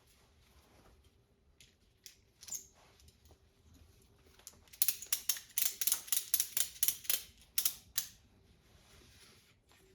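Ratchet strap's ratchet mechanism clicking, a quick run of about a dozen clicks over some three seconds after a couple of single clicks, as the strap is cranked tight to clamp a glue-up of boards.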